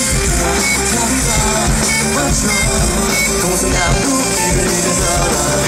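Live rock band playing an instrumental passage, with electric guitar over bass and drums.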